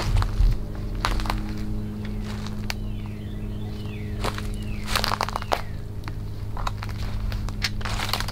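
Footsteps crunching over dry leaves, sticks and debris on an overgrown forest floor, irregular and uneven. A bird repeats short downward-sliding calls in the background, over a steady low hum.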